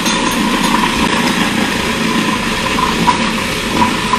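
Food processor running steadily, its blade pureeing chickpeas into hummus.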